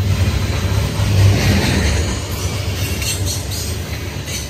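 Freight train of CSX coal cars rolling past close by: a steady low rumble of steel wheels on rail, with a run of sharper clicks and rattles about halfway through.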